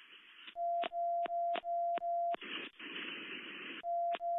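Radio alert tone heard through a police scanner: a steady beeping tone broken by short dropouts about three times a second. It gives way to about a second and a half of radio static, then starts again near the end.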